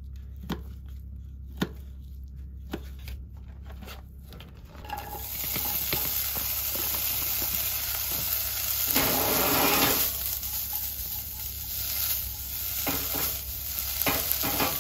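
A kitchen knife clicks through venison bacon onto a paper plate, about once a second. About five seconds in a steady bright hiss sets in from the saucepan on the stovetop, and the cubed bacon is tipped into the pan and sizzles, loudest around nine to ten seconds in.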